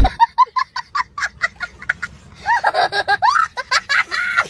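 Laughter: a quick run of short laughs for about the first two seconds, then longer laughs that rise and fall in pitch.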